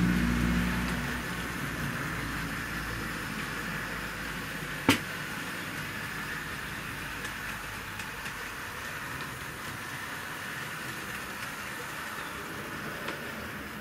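Tri-ang Class 37 model diesel locomotive and coaches running round Super 4 track on the slower setting of a battery controller powered by two 6-volt zinc-carbon lantern batteries: a steady rattle of wheels on rails, with the motor's hum louder in the first second as the train passes close. One sharp click about five seconds in.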